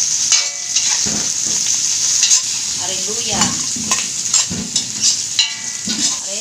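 Sliced onion and garlic sizzling in hot oil in a metal wok, stirred with a metal utensil that scrapes and clinks against the pan again and again.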